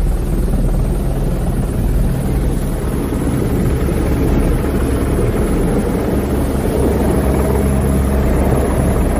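Helicopter rotor and engine running loud and steady, heard from inside the cabin, with a thin steady high whine over the low rotor noise.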